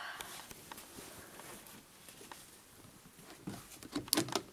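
Small plastic clicks and knocks as items are handled in a clear plastic drawer unit, with a burst of louder clatter near the end.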